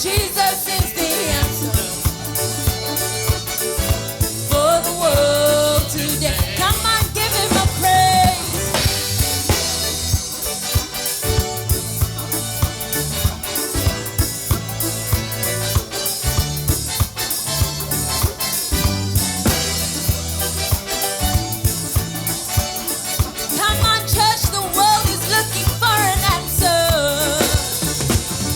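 Gospel worship song played by a band with drum kit and bass on a steady beat, with singing coming in for a few phrases near the start and again near the end.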